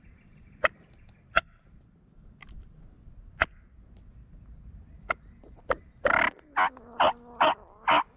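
A few scattered sharp clicks, then a run of five loud, scratchy turkey yelps, about two a second, starting about six seconds in.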